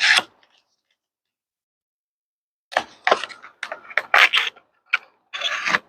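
A cardboard product box being cut and opened with a multitool blade: a short noise right at the start, then, after a silent gap, a run of irregular scraping and rustling bursts from about three seconds in.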